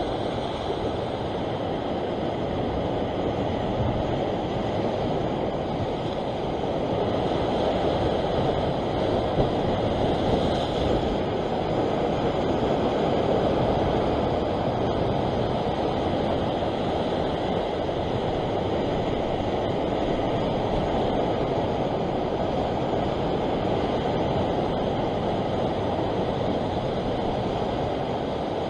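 Steady rushing wash of ocean swell and surf breaking against a rock shelf, a deep even noise that swells slightly about a third of the way through.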